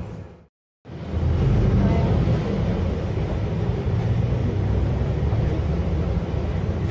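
Steady low rumbling street noise, broken by a sudden drop to silence for about a third of a second just after the start.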